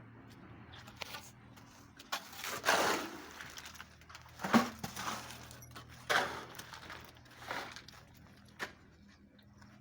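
Irregular scrapes and knocks of hand tools working wet concrete, a few seconds apart, the longest about two seconds in, over a steady low hum.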